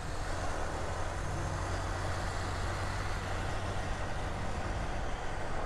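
Single-cylinder 150 cc motorcycle engine running steadily while riding, with wind and road noise rushing over the microphone.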